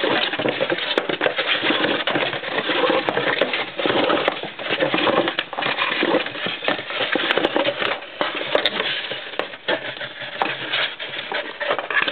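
Cardboard and an antenna cable being handled: continuous rustling and scraping with small clicks and knocks as the cable is fed through a hole in a cardboard box.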